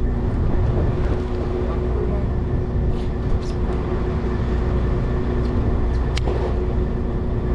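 Boat engine running steadily at idle: a constant low drone with a steady hum. A few short clicks cut through it, the sharpest about six seconds in.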